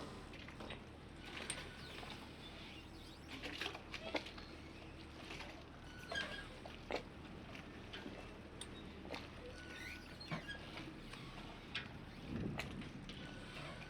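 Harbour ambience: scattered light knocks, clicks and short squeaks at irregular intervals over a low steady hum.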